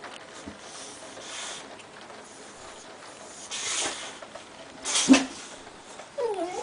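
Boxer dogs giving two short, breathy barks about a second apart, then a brief wavering whine near the end.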